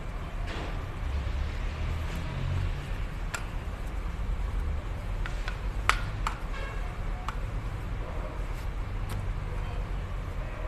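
Light metallic clicks and taps of a diesel piston, its rings and connecting rod being handled and turned over, a handful of separate ones with the sharpest about six seconds in, over a steady low rumble.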